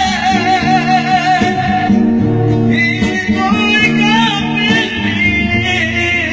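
A male voice singing a wavering, ornamented melody into a microphone, accompanied by acoustic guitar chords.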